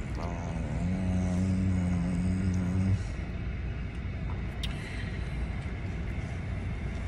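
Steady low background rumble inside a car cabin. For the first three seconds a flat, low, droning tone sounds over it and then cuts off abruptly. A faint click comes about four and a half seconds in.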